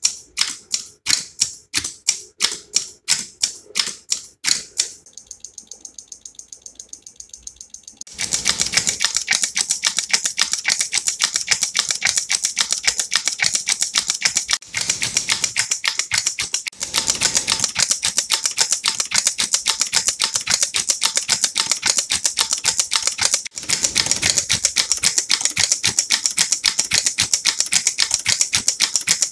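Electromechanical relays of a relay counting decade clicking as they switch through the count: sharp separate clicks about three a second at first, softer and faster clicking from about five seconds in, then from about eight seconds a dense, rapid clatter with a few brief breaks.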